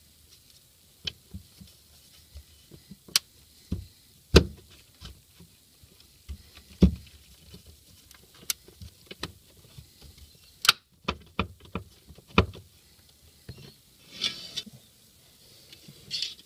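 Aluminium plate knocked and pressed against a car's sheet-metal body panel: irregular sharp taps and clunks, with brief scraping rubs near the end, as the plate is pushed onto greased nutserts to mark its hole positions.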